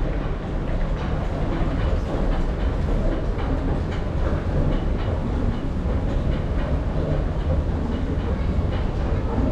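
Escalator running under load: a steady low mechanical rumble with faint clatter from the moving steps.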